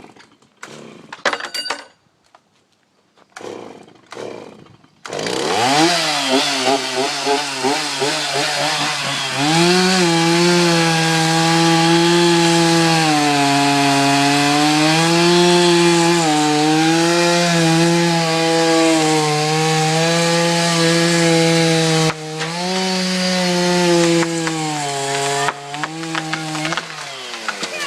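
Gasoline chainsaw starting about five seconds in and revving up, then running at full throttle as it cuts into a maple trunk. The engine speed dips and recovers every couple of seconds as the chain bogs under load in the cut. It cuts off near the end.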